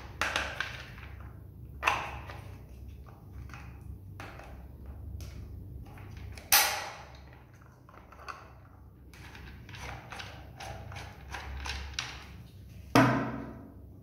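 Hard plastic parts and rubber caster wheels of a washing-machine roller base being handled and put down on a table: scattered clicks and light knocks, with sharper thuds about two, six and a half and thirteen seconds in, the one at six and a half the loudest. A faint low hum runs underneath.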